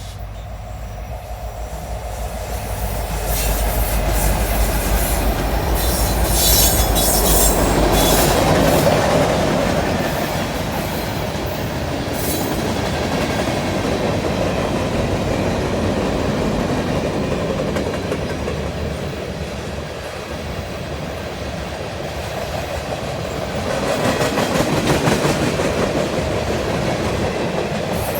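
Long CN freight train passing close by, led by three diesel locomotives. A deep engine rumble builds over the first few seconds and fades by about eight seconds. After that comes the steady rolling of freight cars, with wheels squealing and clicking over rail joints, swelling again near the end.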